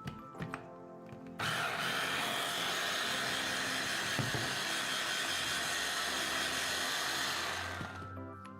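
Food processor running, blitzing flour, cocoa powder, sugar and butter into chocolate soil; it starts suddenly about a second and a half in, runs steadily for about six seconds and winds down near the end.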